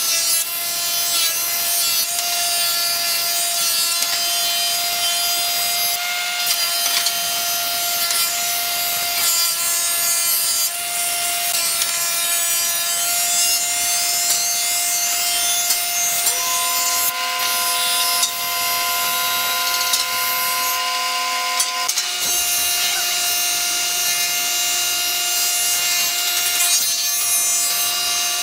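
Industrial wood planer running and planing pine boards fed through its rollers: a steady whine over a dense, continuous rush of cutting noise. For several seconds about two thirds through, a second, higher whine joins in.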